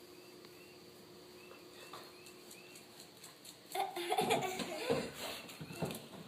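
Faint bird chirps over a quiet background. About four seconds in, a person starts laughing in short, uneven bursts.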